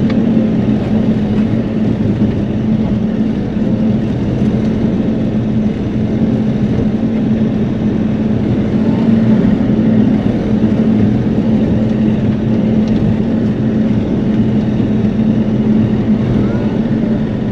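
Bobcat E42 mini excavator's diesel engine running steadily with an even hum, heard from inside the operator's cab.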